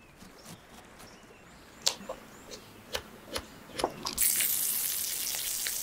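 Small knife cutting raw chicken on a tiny wooden cutting board, tapping the board several times. About four seconds in, a loud, even sizzle starts as the chicken goes into hot oil in a miniature steel wok.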